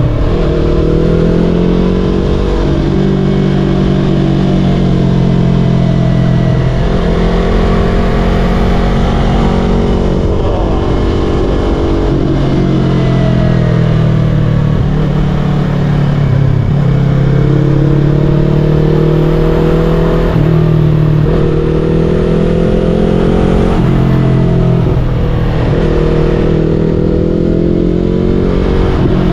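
Yamaha R3's 321 cc parallel-twin engine running while riding, its pitch climbing and dropping back several times as the revs change.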